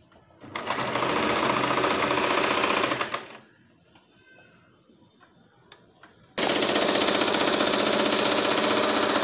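Electric domestic sewing machine stitching fast in two runs, the first about two and a half seconds, the second starting about six seconds in, with a short pause of fabric handling between.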